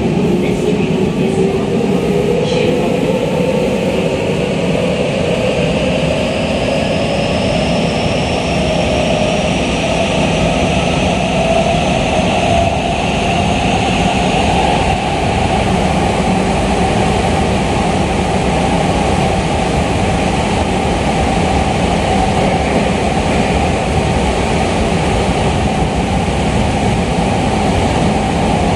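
Eidan 8000 series subway train running through a tunnel, heard from inside the passenger car: a steady rumble of wheels and tunnel noise. The traction motors' whine rises in pitch over the first dozen seconds as the train gathers speed, then holds steady. There are a few clicks in the first few seconds.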